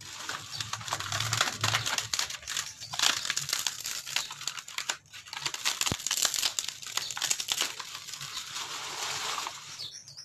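Old ceiling board being torn and broken apart by hand: dense crackling and tearing with many small snaps, easing off near the end.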